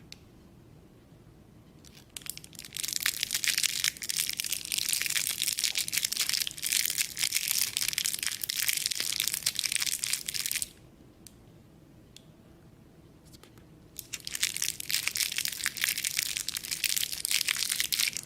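Plastic wrapper being crinkled: dense crackling in two long spells, about eight seconds and then about four, with a pause of about three seconds between.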